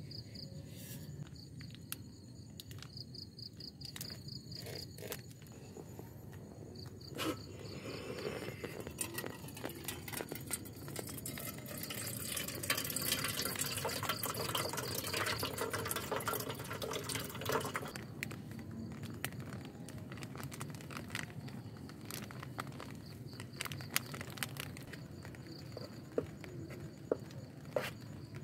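Crickets chirping in a fast pulsing trill. Partway in, a louder, even rushing hiss with a watery character starts and lasts about ten seconds, and small clicks and knocks are scattered throughout.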